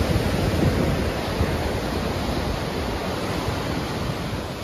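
Ocean surf washing onto a sandy beach, a steady rushing noise with some wind, fading down near the end.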